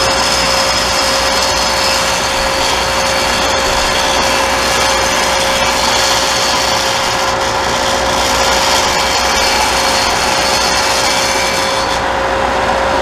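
WoodTek dual drum sander running steadily, a loud even machine noise with a constant hum.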